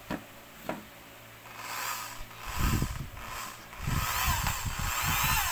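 Electric drill with a paddle-mixer attachment, preceded by two short knocks in the first second. The drill starts about a second and a half in, its motor whine rising and dipping as the paddle churns water in a plastic bucket. From about four seconds in it runs steadily at speed.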